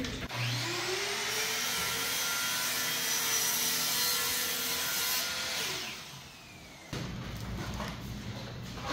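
An electric power tool's motor spins up with a rising whine, runs with a loud, steady rushing hiss for about five seconds, then winds down. A lower steady hum follows near the end.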